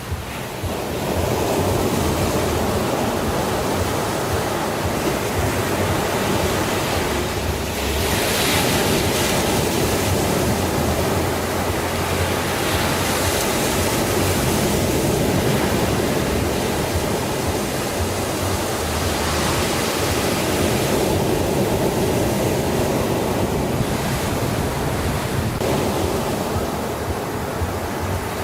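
Ocean surf: a continuous wash of breaking waves, with the hiss of the water swelling and fading every few seconds.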